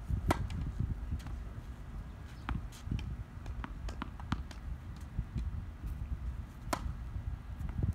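Tennis balls bouncing on a hard court, a string of sharp single pops, then a louder crack of a racket striking a serve near the end.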